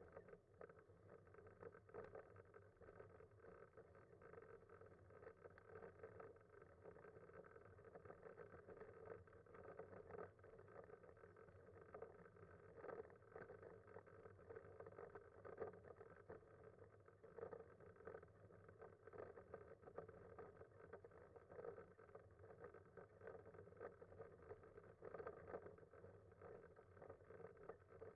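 Faint, steady rolling noise of a manual wheelchair fitted with a Freewheel front-wheel attachment travelling along an asphalt road.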